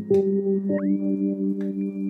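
Background music: a soft ambient piece of sustained tones. The chord changes right at the start and again just before a second in, where a high tone slides up to a new note and holds.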